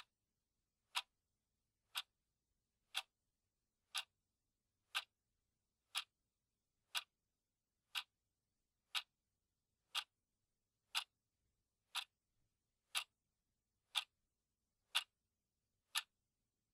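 A clock ticking steadily, one sharp tick each second.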